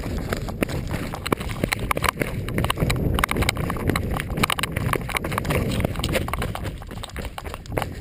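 Running footsteps on a dry dirt and stony trail, quick uneven strikes of shoes on the ground during a fast descent, over a low rumble of wind and handling noise from a camera carried by the runner.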